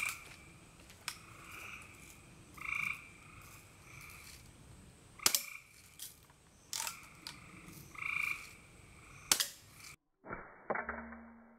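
A frog calling over and over, a short croak about every one and a half seconds, with a few sharp cracks from a Daisy Buck BB rifle being fired. About ten seconds in, the sound cuts to a duller passage with a low hum.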